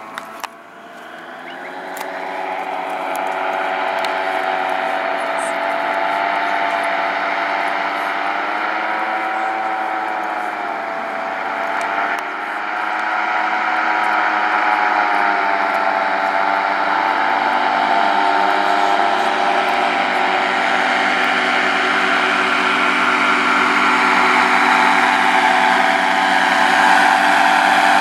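Paramotor (powered paraglider) engine and propeller droning overhead, its pitch wavering slightly and the sound growing louder as it flies closer.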